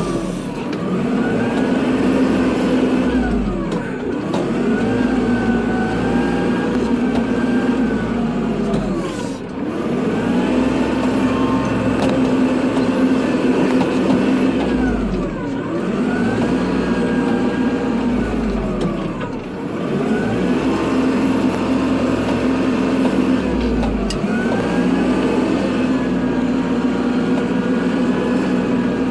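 Kubota tractor's diesel engine running while plowing snow, its pitch dipping and climbing back about every four to six seconds, six times over.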